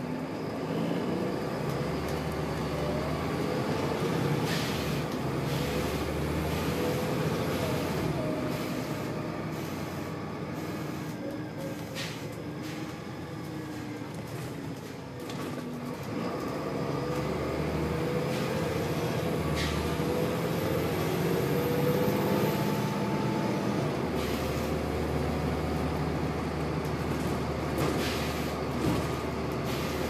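Volvo B7RLE bus's six-cylinder diesel engine and drivetrain heard from inside the saloon, rising and falling in pitch as the bus pulls away, changes gear and slows, with a few short knocks and rattles from the body.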